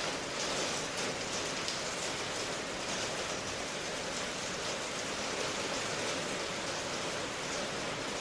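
Steady rain falling, an even hiss with faint, fine patter of drops throughout.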